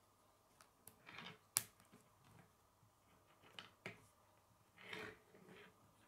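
Plastic K'nex rods and connectors clicking and knocking as the model is handled and set down on a wooden table. There are a few scattered faint clicks and short rustles, and the sharpest click, about one and a half seconds in, is the loudest.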